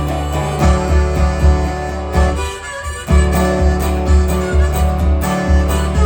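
Instrumental break of a country-blues song played by a one-man band: a harmonica solo over resonator guitar, with a steady low beat. The backing drops out for a moment around the middle before coming back in.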